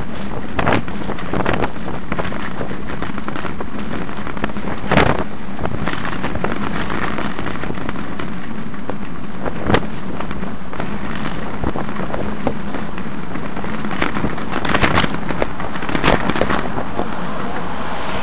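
Steady rush of wind and road noise on a bicycle-mounted camera while riding, broken by a few sharp knocks as the mount jolts.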